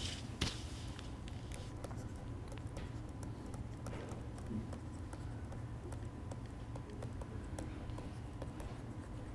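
Faint light clicks and scratches of a pen stylus on a tablet screen as words are handwritten, over a steady low hum.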